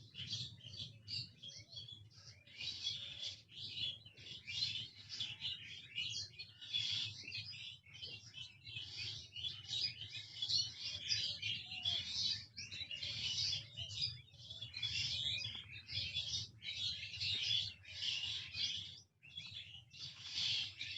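A dense chorus of many small birds chirping and twittering at once: quick high notes overlapping with no pause. A steady low hum sits underneath.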